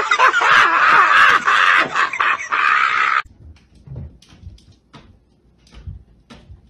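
Loud, distorted high-pitched shrieking and yelling that cuts off suddenly about three seconds in. Then it goes quiet apart from a few faint taps and soft thuds.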